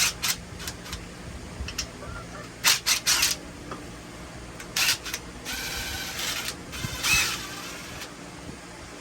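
Cordless drill run in reverse for about two seconds, backing screws out of the wood, after several sharp clicks and knocks of handling.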